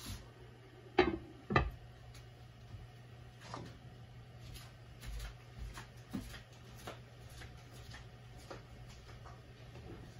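Glass pot lid set down onto a wok: two sharp knocks about a second in, then faint scattered ticks and pops from the squash simmering under the lid over a low steady hum.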